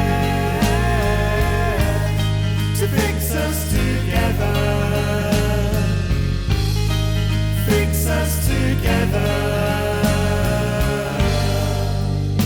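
A band plays an instrumental passage of a rock song: a bass line, sustained chords and drums.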